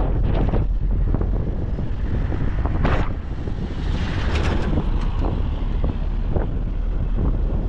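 Wind buffeting the microphone over the steady rumble of a moving vehicle, with scattered short knocks and a brief louder rush about three seconds in.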